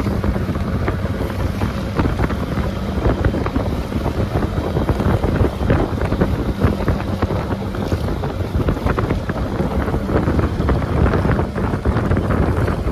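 Small motor taxi boat under way on choppy water: wind buffeting the microphone over the engine running and water slapping against the hull in irregular knocks.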